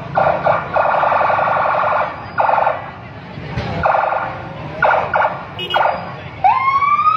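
Emergency vehicle's electronic horn sounding in repeated buzzing blasts, some short and some about a second long. Near the end a siren winds up, rising in pitch.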